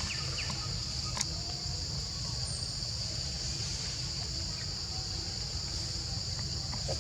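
Steady, high-pitched insect chorus with a low rumble underneath; a single sharp click about a second in.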